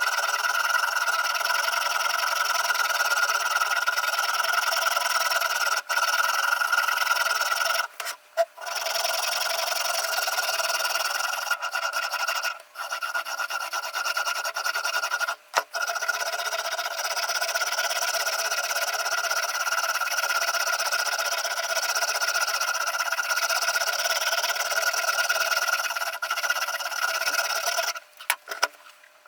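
Sharpening stone of a Ruixin Pro RX-008 guided sharpener rubbing back and forth along a steel kitchen-knife edge. The grinding scrape runs almost without break, with a few short pauses between passes and a stop near the end.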